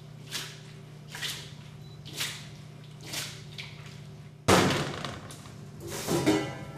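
Green beans tumbling and swishing in a large stainless steel bowl as it is flipped, about once a second, over a steady low hum. About two-thirds of the way in, a sudden loud clatter.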